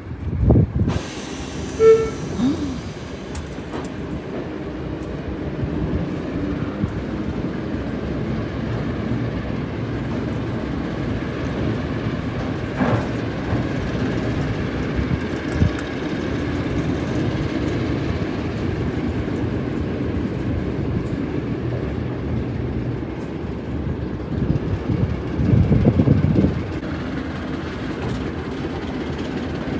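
British Rail class 08 diesel shunter's engine running steadily with a low hum, with a short sharp tone about two seconds in and a louder surge of engine noise about 26 seconds in.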